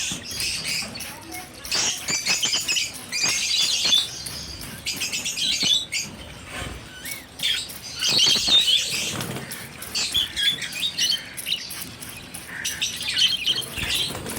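Small birds chirping and twittering in dense overlapping bursts, each lasting a second or two, with scattered sharp clicks among them.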